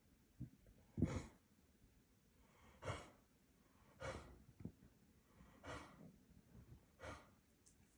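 Elderly yellow Labrador retriever making breathy, raspy huffs as it tries to cough, five in all, each a second and a half or so apart, the first the loudest.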